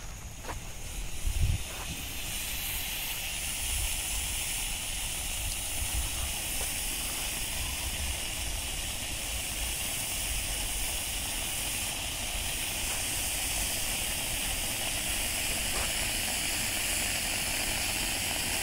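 Ground fountain firework (Supreme Fireworks Trolls Tulip flower pot) spraying sparks with a steady hiss. The hiss builds up over the first couple of seconds and then holds even.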